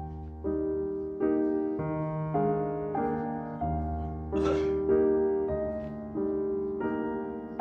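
Background piano music: a gentle tune of sustained notes and chords, changing about every half second, with a brief noise about four and a half seconds in.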